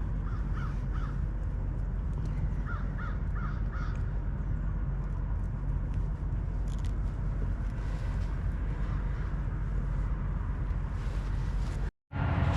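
Bird calls: a quick series of three short calls, then four more a couple of seconds later, over a steady low background noise. The sound cuts out abruptly near the end.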